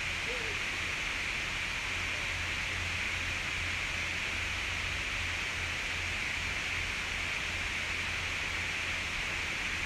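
Steady background hiss over a low hum, with no distinct events.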